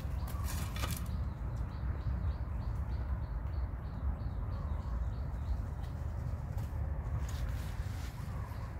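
Outdoor background sound: a steady low rumble with faint, short, high chirps repeating about four times a second, in the manner of birds.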